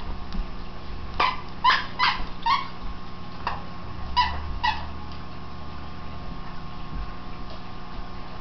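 A dog giving about seven short, high yipping barks in rough-and-tumble play in the first five seconds, then falling quiet.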